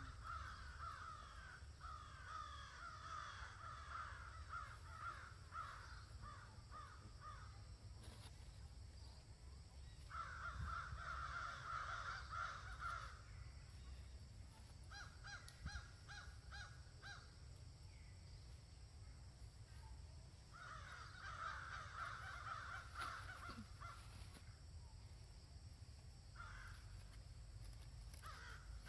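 Harsh animal calls in rapid bouts of a few seconds each, four bouts with quieter gaps between them, one of them a quick pulsed series.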